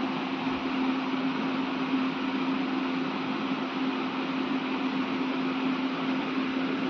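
Steady low machine hum under an even hiss, with no change in pitch or level.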